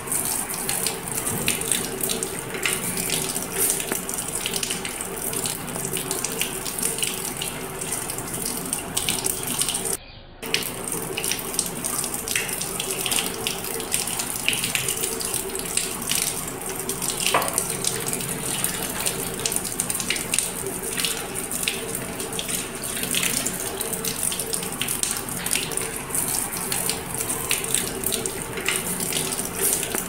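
Running water pouring steadily onto a wet parakeet and its wire cage during a bath, with a brief gap about ten seconds in.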